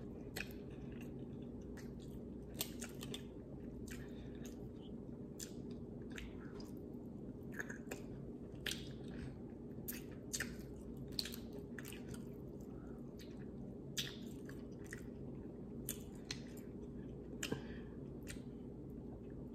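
Wet, close-up eating sounds: chewing, lip smacks and sucking on seafood-boil shellfish in butter sauce, with irregular short clicks and squishes as fingers pick through the food in a glass bowl, over a low steady hum.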